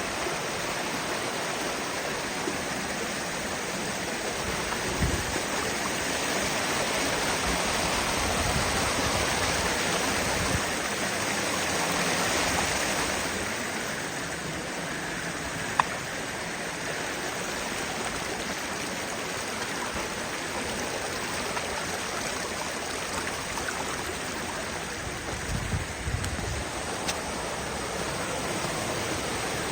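Steady rush of a creek running over rocks, swelling a little partway through, with one sharp click about halfway.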